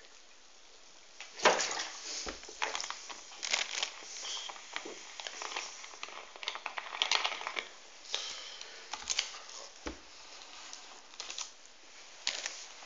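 Handling noise: irregular crinkling and clicking of plastic as a 2-litre plastic cola bottle and the plastic wrapping on the table are handled, opening with a sharp knock about a second and a half in.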